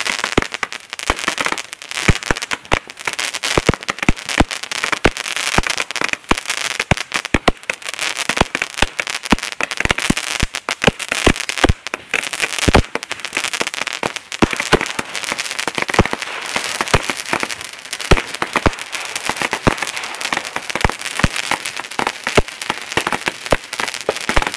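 Fireworks and firecrackers going off in a dense, continuous crackle of sharp bangs, several a second, with no let-up.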